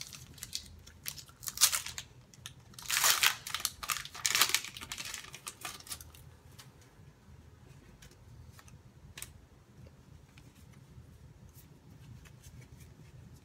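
Foil booster pack of Pokémon trading cards being torn open and crinkled, with loud rustling bursts over the first five seconds. Then come a few faint ticks as the cards are slid out and fanned in the hands.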